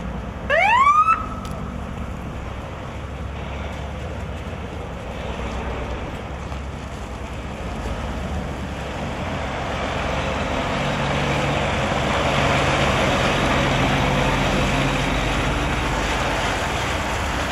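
A short rising siren whoop about half a second in, then a motor vehicle running and growing louder, loudest from about ten seconds in with a low engine hum.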